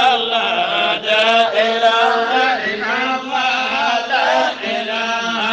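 Chanted Arabic devotional poem (a qasida praising the Prophet), sung in a slow, wavering, ornamented melody over a steady held drone.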